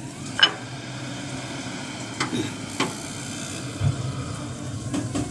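A cat eating noodles off a plate, with scattered sharp chewing and plate clicks and a dull thump just before the end, over a steady low background noise.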